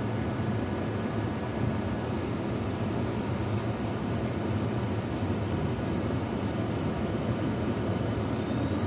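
Tram running along its rails, heard from inside the car: a steady low rumble of wheels and running gear.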